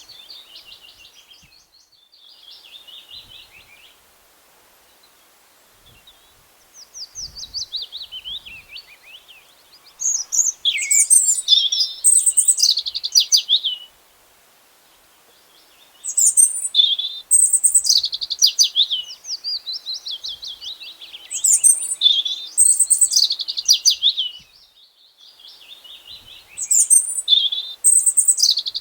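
Songbirds chirping and trilling. From about ten seconds in, a loud song phrase of high chirps and falling trills repeats about every five seconds, with softer trills before it.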